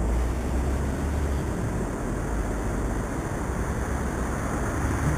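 Steady low rumble and hiss of outdoor ambience, with no distinct events.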